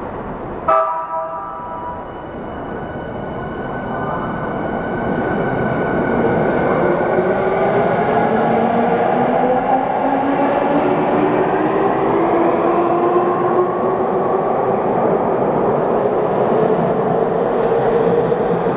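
Yokohama Minatomirai Railway Y500 series electric train pulling out and accelerating past. A brief pitched tone sounds about a second in. The traction motors' whine then climbs slowly in pitch while the running noise grows louder as the train gathers speed.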